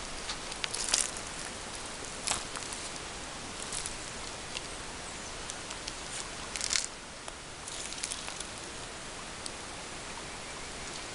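A few scattered rustles and crunches in dry leaves and brush over a steady outdoor hiss, the loudest about two thirds of the way in.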